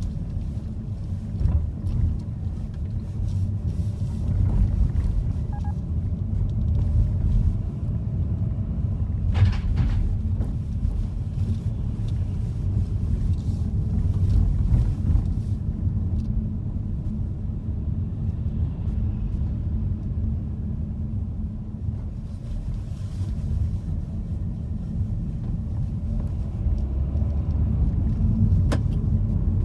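Car cabin noise while driving: a steady low rumble of engine and tyres, with a sharp click near the end.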